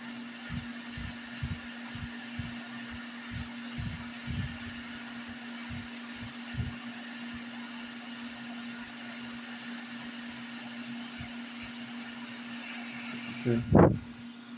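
Hot air rework station blowing steadily with a constant hum, reflowing solder to set a battery connector in place. Soft low knocks come in the first several seconds, and there is a loud short knock near the end.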